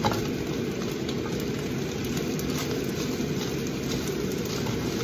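A spatula stirring and scraping fried rice with frozen vegetables in an enameled cast-iron pan, with faint scattered clicks, over a steady low rumble.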